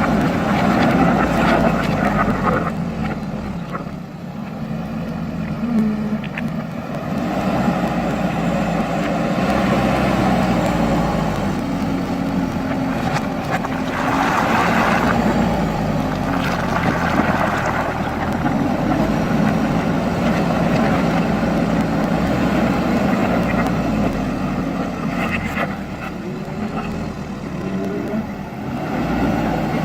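JCB backhoe loader's diesel engine running under load, its pitch rising and falling as the machine works.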